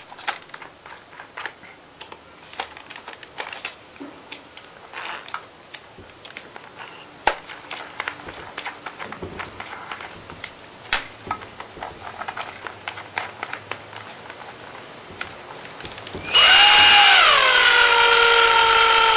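Light clicks and knocks of handling, then about sixteen seconds in a cordless drill starts up at low speed on the parking meter's winding knob. Its whine drops in pitch as it takes up the load of the meter's spring, then runs steadily.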